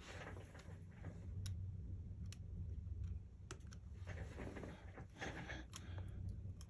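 Small tools and phone parts on a repair bench: light sharp clicks every second or so, with short scraping swishes, over a steady low hum.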